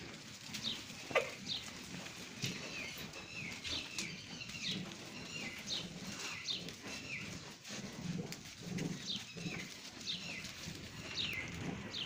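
Small birds chirping over and over: short, high, falling chirps, with a low rustle and a few faint knocks beneath.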